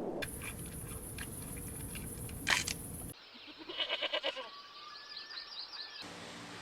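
Lamb bleating in short clips spliced together, with a loud bleat about two and a half seconds in and a pulsing bleat about four seconds in.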